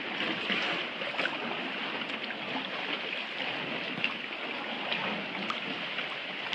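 Water trickling and splashing around a kayak as it is paddled, with scattered small drips and ticks from the paddle blade and water surface.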